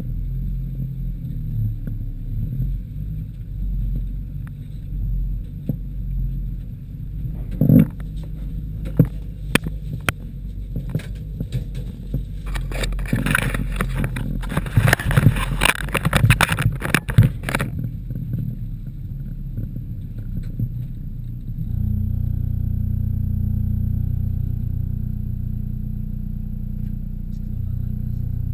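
Inside the cab of a 1989 VW T3 Syncro driving slowly over a rough forest track: the engine runs with a low drone while the body and its load knock and rattle over bumps, with a dense spell of clattering in the middle. About three-quarters through, the engine note steps up and holds steadier.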